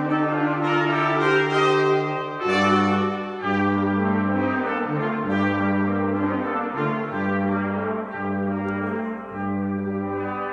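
Brass quartet playing a slow piece: a long held chord, then from about two and a half seconds in the bass part plays repeated detached low notes, about one a second, under held upper parts.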